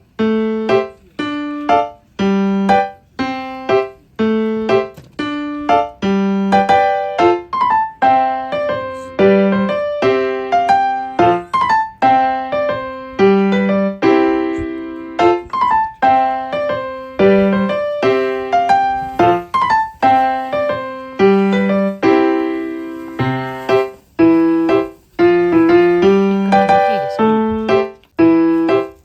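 Background music: a piano playing a steady, repeating pattern of plucked-sounding notes.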